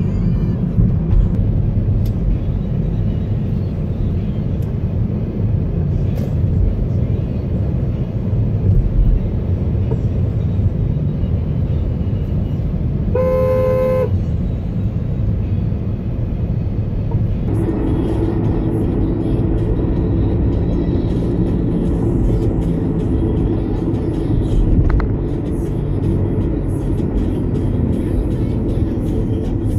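Steady road and engine rumble inside a moving car, with one car horn honk lasting under a second about halfway through, as another car cuts across in front.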